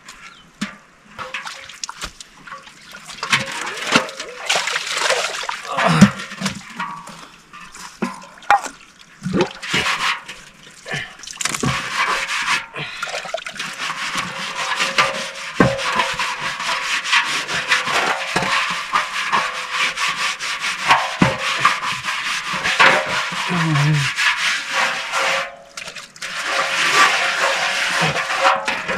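Pork frying in a pan: a steady sizzling hiss with frequent scrapes and clicks of a utensil stirring it, breaking off briefly twice.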